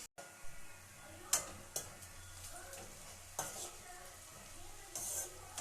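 Chopped onions frying in hot oil in a pan, sizzling steadily, browning toward golden. A spoon knocks and scrapes against the pan a few times as they are stirred.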